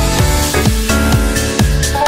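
Background electronic dance music with a steady kick-drum beat, about two beats a second, under held synth tones.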